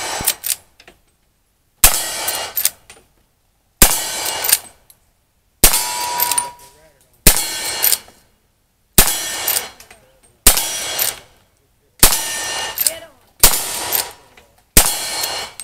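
Lever-action rifle fired in a steady string, nine shots about one every one and a half to two seconds. Each shot is followed by a couple of short, sharp metallic clanks.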